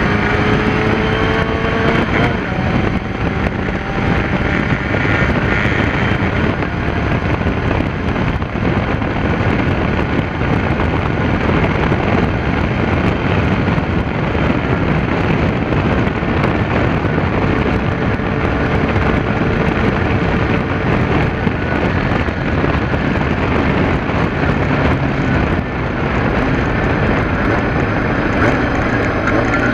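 Kawasaki ZR-7's air-cooled inline-four engine pulling a motorcycle along at road speed, with heavy wind rush over the microphone. The engine note rises in the first couple of seconds as the bike accelerates, then holds fairly steady.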